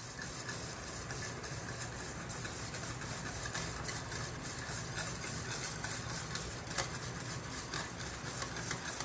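A steady low hum with light ticks and scrapes of a utensil stirring hot sugar water in a metal pot as gelatin powder is sprinkled in.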